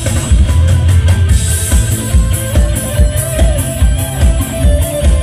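Loud live music from an Isan mor lam show band, with a heavy, steady drum and bass beat under a sustained melody line.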